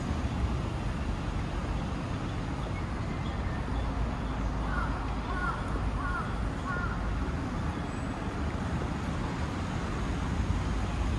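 Steady city street noise with a low traffic rumble, and a crow cawing four times in quick succession midway.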